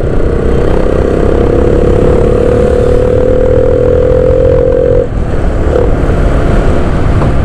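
Strong wind rushing over a helmet-mounted action-camera microphone on a motorcycle riding at about 50 km/h, with the motorcycle's engine hum rising slowly in pitch and cutting off about five seconds in.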